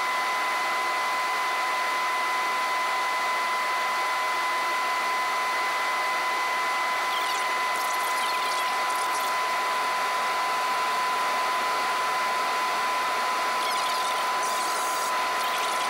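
Steady in-flight cabin noise of a Cessna 208 Caravan's PT6A turboprop engine and propeller: an even hiss with a constant high whine running through it.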